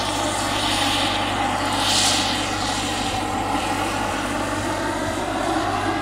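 Turbine-powered scale RC model of a Kamov Ka-32 coaxial helicopter in flight: a steady turbine and rotor noise, with the hiss rising briefly about two seconds in.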